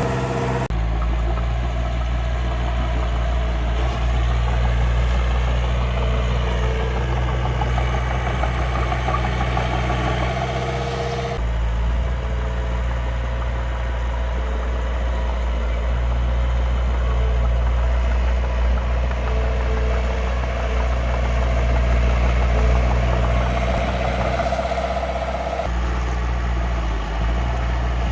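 The engine of a miniature construction machine idling steadily with a low hum. The sound shifts abruptly twice, about 11 and 26 seconds in.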